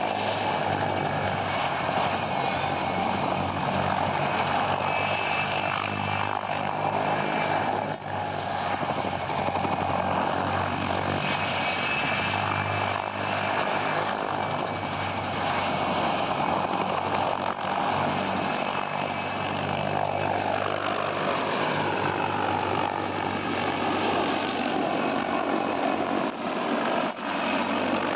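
Mil Mi-2 helicopter flying low passes: the whine of its twin turboshaft engines over the steady beat of the main rotor. About two-thirds of the way through, a set of tones slides down in pitch as it passes close by.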